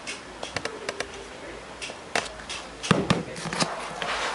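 Scattered knocks and taps on the wooden cabinet of a waterlogged speaker as it is handled, a few louder in the second half; the wood is soft and its layers are coming unglued.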